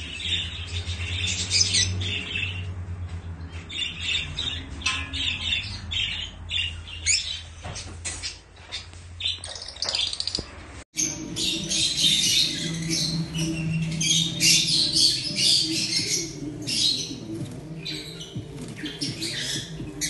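A group of lovebirds chirping and squawking, many short shrill calls overlapping over a low steady hum. The chatter grows denser and louder after a cut about eleven seconds in.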